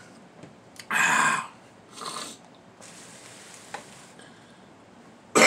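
A man breathing out heavily, full after a meal: a loud breathy exhale about a second in and a shorter one a second later. A loud burp comes near the end.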